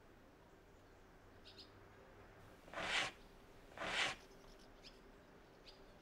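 Small birds chirping faintly in short high notes, with two short rushing swishes about a second apart near the middle.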